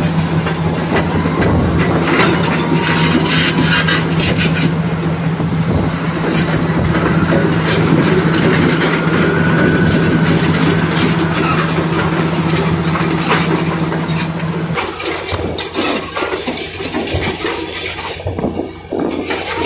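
Caterpillar crawler bulldozer at work: its diesel engine runs with a steady drone while the steel tracks clank and the blade scrapes through rubble. About fifteen seconds in, the engine's steady drone drops away and the clanking and scraping go on.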